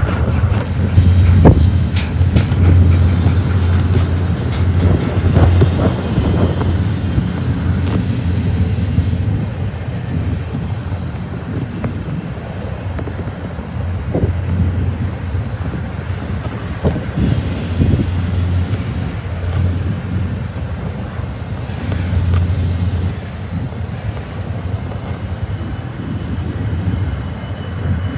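BNSF double-stack container train rolling past close by: a steady low rumble of steel wheels on the rails, broken by a few brief metallic sounds from the cars.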